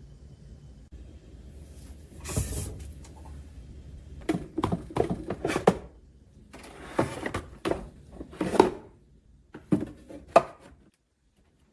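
Plastic containers and food items being handled and set down in a refrigerator. A short rustle comes about two seconds in, followed by several runs of knocks and clatters.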